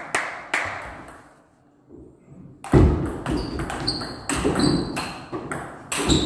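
Table tennis ball clicking a couple of times, a near-silent pause, then a thud as play starts about two and a half seconds in and a rally of the celluloid ball clicking back and forth off bats and table.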